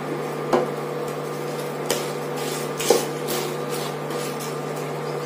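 Wooden spatula stirring cut drumstick pieces in a nonstick pan: a few scrapes and knocks against the pan, loudest about three seconds in, over a steady low hum.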